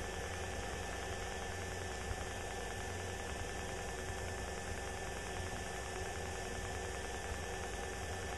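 Steady drone of a light single-engine propeller plane in cruise, heard inside the cabin: even engine and airflow noise with a constant hum.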